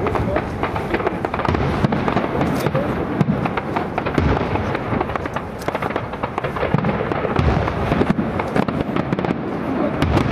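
Aerial firework shells bursting one after another, a continuous run of booms and crackle.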